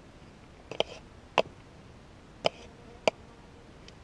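Plastic digging scoop and dug soil with gravel being handled, giving about five short, sharp clicks and knocks at irregular intervals.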